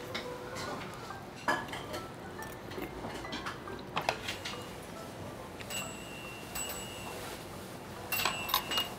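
Metal spoon and chopsticks clicking against ceramic bowls and plates while eating, with sharp clinks about a second and a half in and again about four seconds in. In the second half a high ringing tone, like a small chime, sounds twice.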